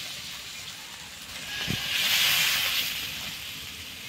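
Water poured into a pan of hot oil and fried potatoes, hissing and sizzling as it hits the oil. The hiss eases, then swells again about two seconds in as more water goes in, just after a soft knock.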